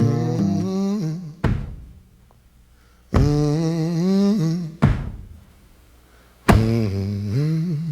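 A blues singer humming a wordless, moaning line in three phrases over a sparse backing, punctuated by heavy stomp-like thumps roughly every one and a half to two seconds.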